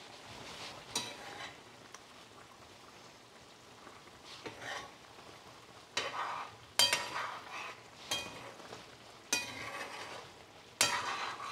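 Metal spoon stirring a simmering stew of chicken wings and acorn squash chunks in a dark pan: a series of scraping, sloshing strokes, loudest in the second half, over the low bubbling of the simmer.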